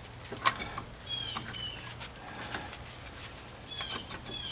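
A few sharp metallic clicks and knocks from a C-clamp being worked against a brake caliper to press its pistons back in, with a couple of runs of short high-pitched squeaky chirps in between.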